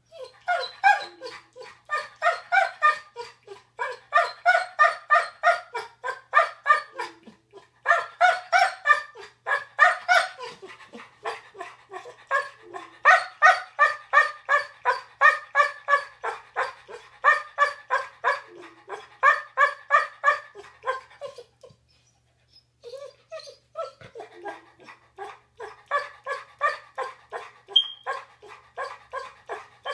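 Yellow Labrador retriever 'talking': a long run of short, pitched barks and whines, several a second, with a pause of about a second roughly three-quarters of the way through.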